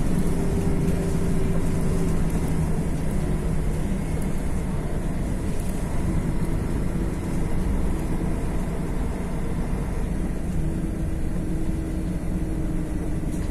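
Mercedes-Benz OM 457 LA straight-six diesel of an O-500MDA bus running steadily, with a faint, even high whine above the engine note.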